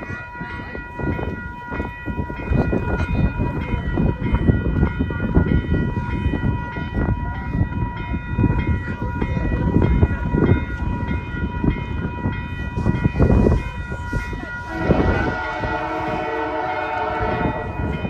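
Low, uneven rumble of an approaching train. About 15 seconds in, the locomotive's air horn starts sounding a long, multi-note chord.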